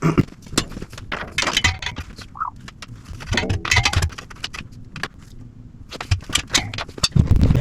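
Irregular metallic clinks and knocks as a steel sissy bar and other metal chopper parts are handled and offered up to the rear fender for a mock-up.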